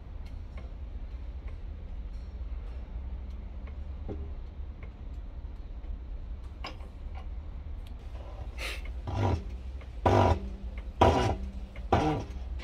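Steady low workshop hum with faint ticks, then about five loud metal clanks in the last few seconds as the water pump's shaft and ball bearing are handled and set on the steel bed of a press.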